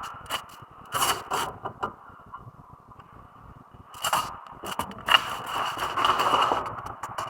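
Irregular scraping and sharp clicks from hand work on a car's front brake, with a longer scraping stretch in the last couple of seconds.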